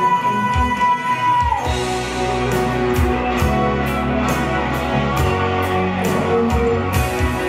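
Live band music. A singer holds one long high note that ends about one and a half seconds in, then the band plays on with electric guitar and bass over a steady cymbal beat.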